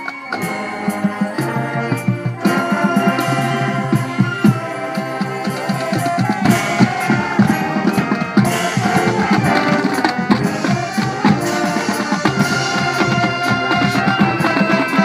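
Marching band playing: sustained chords from the winds over a drum line beating a steady, driving rhythm.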